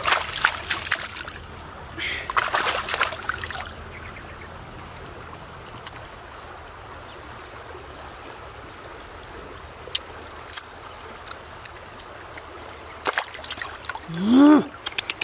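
Hands splashing in shallow river water, then a quieter stretch of steady water noise with a few small clicks. Near the end there is more splashing and a short voiced exclamation, the loudest sound.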